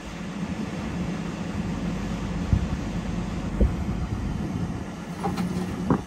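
New Holland combine's diesel engine running steadily, a low even hum, with two short low thumps about midway.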